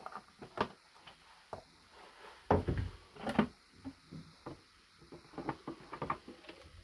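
Irregular clicks and knocks of hard parts being handled and set down, loudest about two and a half to three and a half seconds in.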